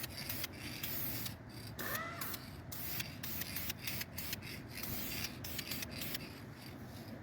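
Aerosol can of Dupli-color graphite rim paint spraying in a series of short hissing bursts with brief pauses between them, an overspray coat being laid over tacky paint on a wheel rim.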